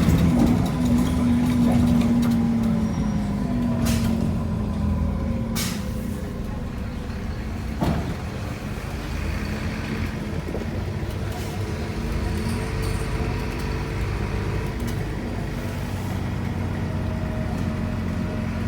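Diesel bus engine running with a steady drone that eases off slightly, broken by two short air hisses about four and six seconds in and a single knock about eight seconds in.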